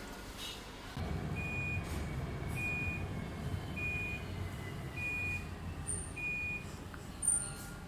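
Panasonic NA-F135X4 top-loading washing machine beeping five times, evenly about a second apart, signalling the end of the wash cycle, over a low steady rumble.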